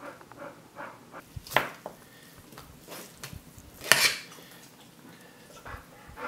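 Two sharp clinks of a metal fork against the dishes, about a second and a half in and again near four seconds, as cooked chicken is pulled off the bone.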